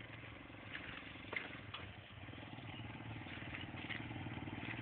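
Motorcycle engine running with a rapid, even pulse, faint at first and growing steadily louder from about halfway through.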